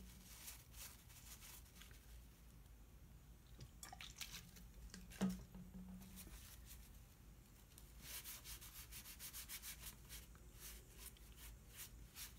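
Faint rubbing of a paper towel wetted with rubbing alcohol over a sanded wood-filler patch, wiping away the sanding dust before painting. The quick strokes grow brisker about two-thirds of the way through, and there is one small knock about five seconds in.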